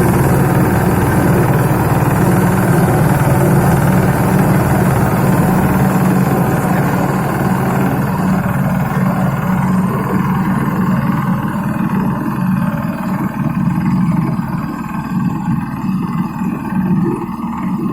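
Mini road roller's engine running steadily, with a strong low hum; it becomes a little duller and quieter after about eight seconds.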